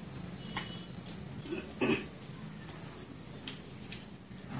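Close-up eating sounds: chewing with soft wet clicks and smacks as rice is eaten by hand, with one louder short mouth sound about two seconds in.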